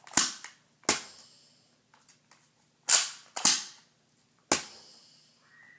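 Nerf N-Strike Modulus Ionfire dart blaster being worked by hand: five sharp plastic clacks of its priming and firing mechanism, two pairs about half a second apart and then a single one.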